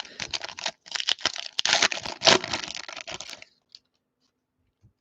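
A foil trading-card pack wrapper being torn open and crinkled by hand, a dense crackling rustle that stops about three and a half seconds in, followed by a few faint ticks.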